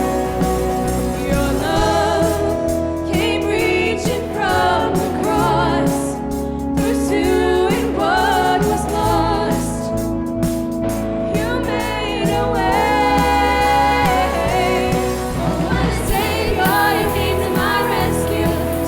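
A live worship band with singers performing a contemporary Christian worship song.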